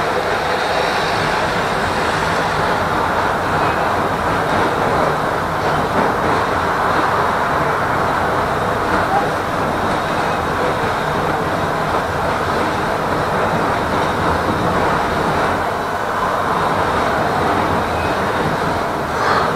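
Tram running along its track, a steady rumble of wheels on rails.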